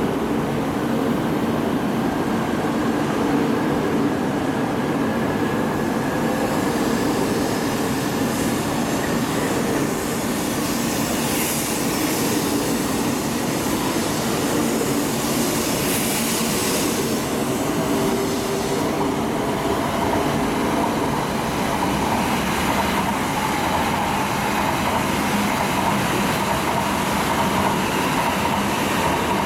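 Shinkansen train pulling out of the platform and gathering speed, its wheels rolling steadily past with a faint whine that rises slowly in pitch over the first ten seconds. Another Shinkansen train is running in the second half.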